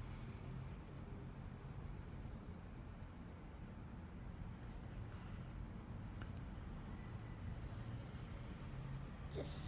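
Colour pencil scratching on paper in strokes as it colours, over a steady low hum, with a brighter scratch just before the end.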